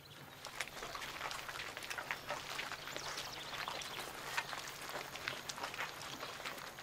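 Footsteps of a group of people hurrying over grass: many quick, irregular steps overlapping, starting about half a second in.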